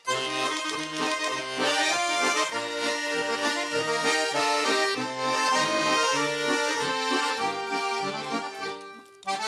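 Accordion playing the instrumental introduction to a folk song: a melody over a steady, rhythmic bass-and-chord accompaniment. It drops away briefly near the end, just before the voice comes in.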